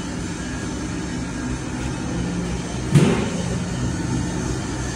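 Ribbon blender powder mixer running steadily, its motor driving the ribbon agitator through the powder in a low, even hum. A single sharp knock sounds about three seconds in.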